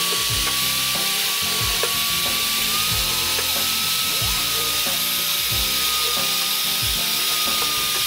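Electric drill running steadily with a long thin bit, boring holes through the hard plastic flange of a washing-machine tub: a steady motor whine that rises slightly in pitch about three seconds in. Background music with a beat plays underneath.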